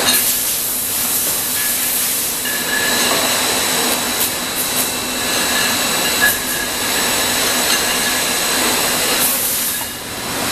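Wine bottling and labelling line running: a steady machine hiss with faint steady whining tones and a few brief clatters.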